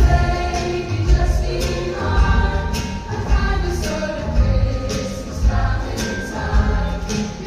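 A choir singing over accompaniment with a steady low beat, about one beat a second.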